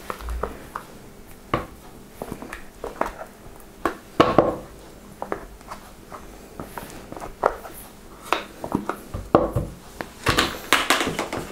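A spoon scraping and knocking against plastic tubs as soft cream cheese is scooped out and dropped into a plastic bucket of tomato purée: irregular short knocks and scrapes.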